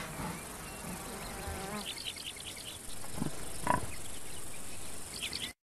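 Outdoor wildlife ambience: a steady high insect buzz with short bird chirps, and two brief sharp animal sounds about three and a half seconds in.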